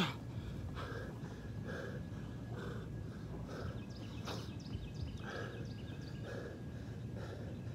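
A man breathing hard, panting in rhythm about once a second, out of breath partway through heavy sets of push-ups.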